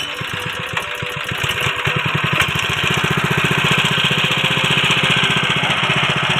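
Honda GX160 single-cylinder four-stroke petrol engine just started, driving a Sanchin power-sprayer pump to draw water into the tank. It picks up speed over the first couple of seconds, then runs steadily with an even firing beat.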